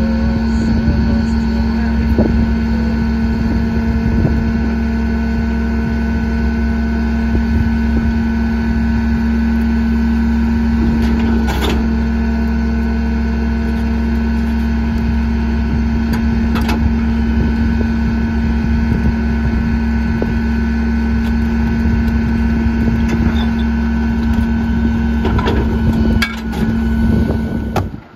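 Leach Sanicruiser rear-loader garbage truck running at a steady raised engine speed to drive the hydraulics while its rotary packer cycles, with a constant hum and a few knocks and clanks of trash and metal. The sound drops off sharply near the end.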